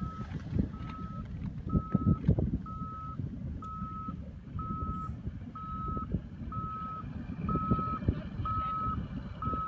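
An electronic warning beeper repeating one short, steady high beep about once a second, over an uneven low rumble with irregular knocks.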